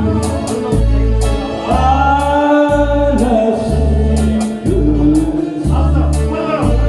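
Music: a voice singing a Korean song over a backing track with a steady, regular bass beat, holding one long wavering note through the middle.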